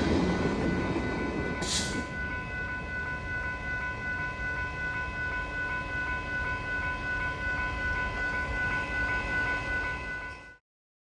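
A train rolling past, its rumble fading over the first couple of seconds and then holding steady, with a steady high-pitched tone running under it and a short hiss about two seconds in. The sound cuts off abruptly near the end.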